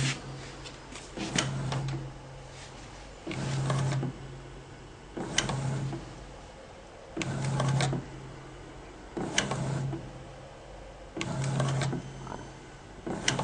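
Plug and socket endurance tester running its insertion-withdrawal cycle, about one stroke every two seconds. Each stroke has a short run of the drive motor's low hum with a rattle of the moving plug carriage, and a sharp click comes about every four seconds.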